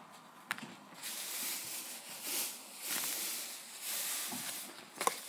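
Homemade borax slime being squeezed and worked by hand: soft, hissy squishing noises that come in several swells, with a sharp click about half a second in and another near the end.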